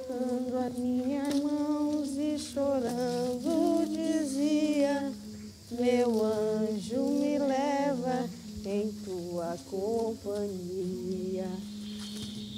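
A woman's voice singing a slow, wordless, lullaby-like melody in long phrases with wavering pitch, over a steady low held note.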